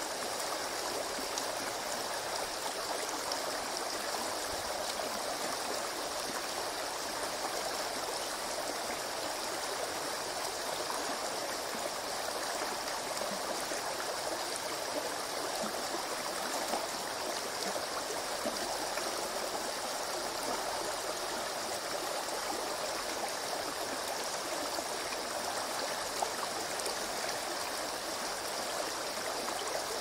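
Shallow stream running over rocks and pebbles close by, a steady rush of water with fine splashing and gurgling.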